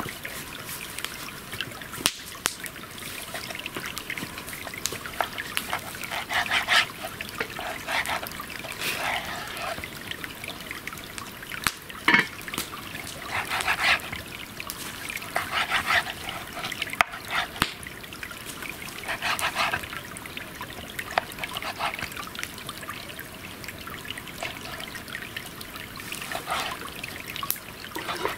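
Knife cutting raw pork belly on a wooden cutting board in short strokes, over scattered sharp pops and clicks from a burning log campfire.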